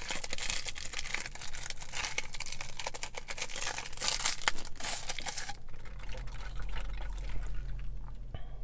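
Clear plastic wrapper being torn and stripped off a boba straw, a dense rustle with small crackles that stops about five and a half seconds in.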